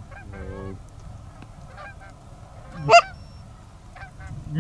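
Canada goose honks: a low call near the start, a few faint short calls, and one loud, sharp honk about three seconds in.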